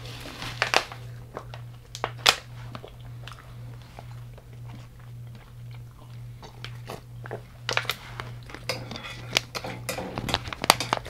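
Close-up biting and chewing of crunchy deep-fried, Hot Cheetos-coated food, a series of sharp crackly crunches in bunches, loudest near the start and again in the last few seconds, over a steady low hum.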